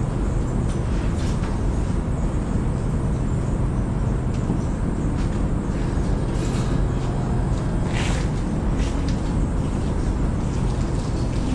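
Steady engine noise from farm machinery running, a low hum under a wash of noise, with a couple of short scraping or clanking sounds partway through.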